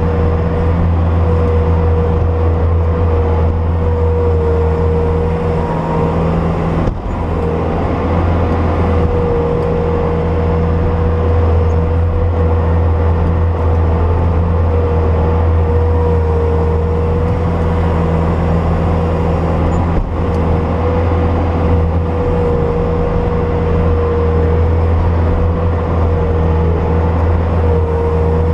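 Bobcat S250 skid steer's diesel engine running steadily under working revs, with a steady high whine over it. Two brief breaks come about seven and twenty seconds in.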